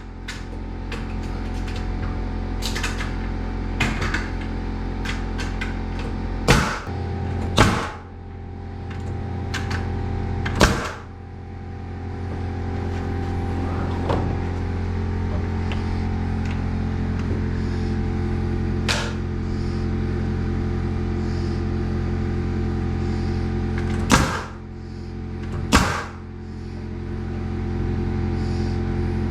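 Nails being driven into 2x4 framing lumber: about eight sharp bangs, some in pairs, over a steady motor hum.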